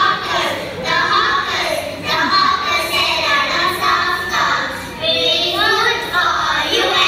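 A group of young children singing together, many voices at once, with only faint backing music.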